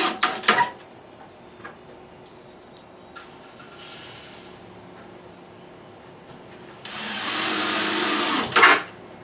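Cordless drill driving screws into plywood: two short sharp bursts just after the start, a faint brief run about four seconds in, then a steady run of about a second and a half near the end that finishes in a sharper, louder burst.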